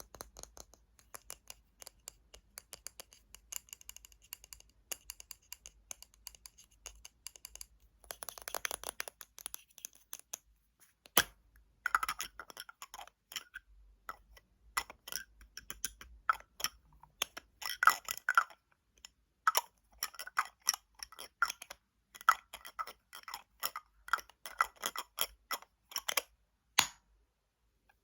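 Fingernails tapping on hard plastic and glass objects. The first taps are quick and light with a faint ringing, then comes a short scratchy rubbing stretch, followed by louder clusters of taps that stop shortly before the end.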